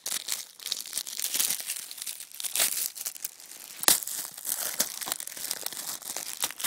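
Plastic shrink wrap on a Blu-ray case crinkling and tearing as fingers pick at it, with a sharp click about four seconds in.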